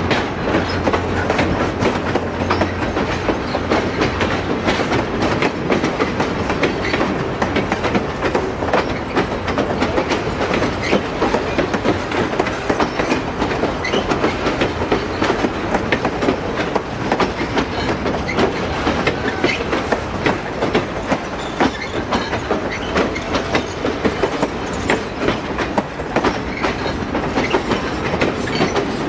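Excursion train cars rolling past, the wheels making a steady stream of clicks and knocks over the rail joints, with a low hum in the first few seconds.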